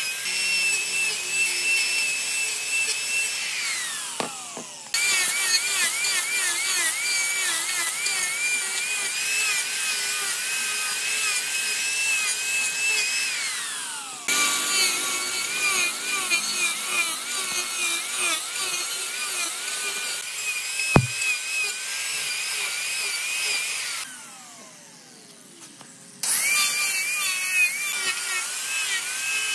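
Angle grinder with an abrasive disc grinding wood, its high motor whine dipping and wavering in pitch as the disc bites. Twice the whine falls away as the motor winds down. There is a single sharp click near the middle and a short quieter gap near the end before the grinding starts again.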